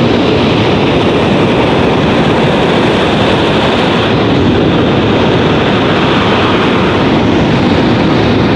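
F/A-18 Hornet jet passing with one afterburner lit: a loud, steady roar of jet exhaust that drowns out everything else.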